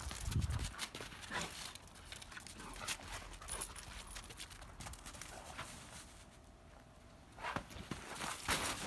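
Irregular footfalls crunching in snow as a Dogo Argentino runs about, with a quieter spell about six to seven seconds in.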